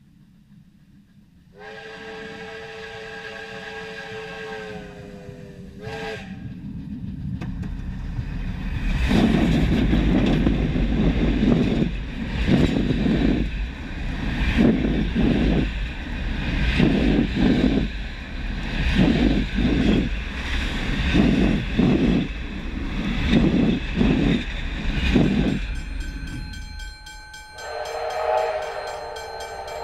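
Steam locomotive R761, a 1951 4-6-4 Hudson, sounding a long whistle blast of about four seconds as it approaches, the pitch jumping up as it is shut off. The train then runs right over a camera between the rails: a building rumble with heavy pulses about once a second as the engine and carriages roll past overhead. Near the end another steam whistle blast sounds.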